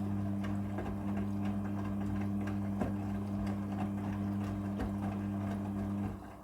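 Midea front-loading washing machine running during its prewash with a steady low electric hum and light irregular ticks; the hum cuts off abruptly near the end.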